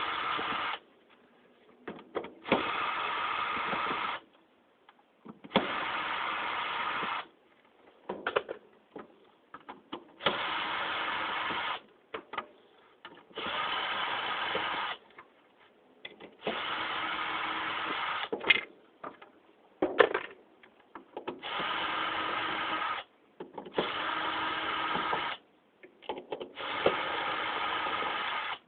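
Electric drill-driver spinning out the screws that hold the ceiling fan's blades, in short runs of about a second and a half each, about nine times, with small clicks and clatter from handling between runs.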